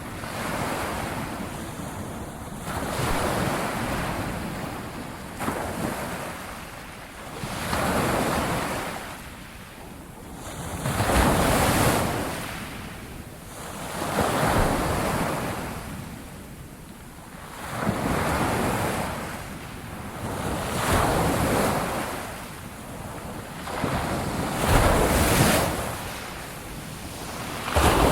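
Ocean waves breaking and washing on a shore, one surge swelling and falling away every three seconds or so, with wind noise on the microphone.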